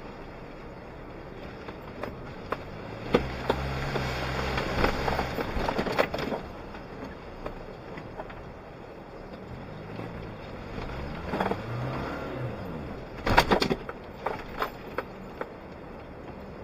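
Suzuki Jimny engine heard from inside the cabin as it drives over rough off-road ground, its revs rising and falling in two pushes under load. Sharp knocks and rattles from the vehicle jolting, with a loud cluster of knocks about three-quarters of the way through.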